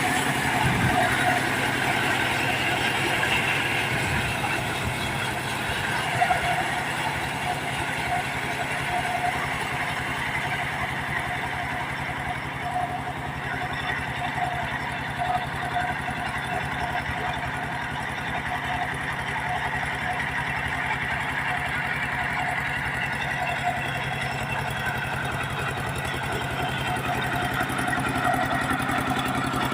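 Diesel engine of a mobile sawmill running steadily.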